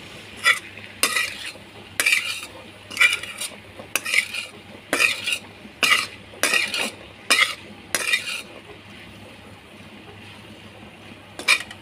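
Metal ladle scraping and knocking against an iron kadhai as black chickpeas in ghee masala are stirred, about one or two strokes a second. After about eight seconds the stirring stops and the fry sizzles on its own, with one more scrape near the end.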